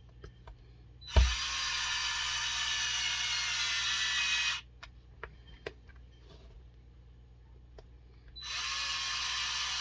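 Cordless electric driver running in two steady bursts of about three and a half seconds each, driving the small screws of a plastic beadlock ring on an RC truck wheel. A sharp knock comes as the first burst starts, and a few light clicks of small parts fall in the gap between the bursts.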